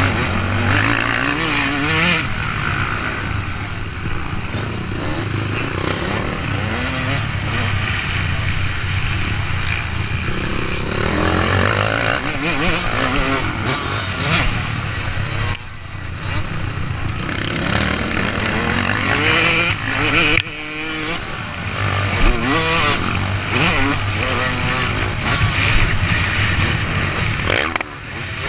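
Motocross bike's engine running hard under racing throttle, its pitch rising and falling as the rider accelerates and shifts, with the throttle briefly chopped off about halfway through, again a few seconds later, and near the end.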